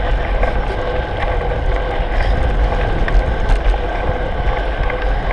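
Steady wind noise on the microphone of a handlebar-mounted camera on a moving bicycle, mixed with the low rumble of its tyres on asphalt.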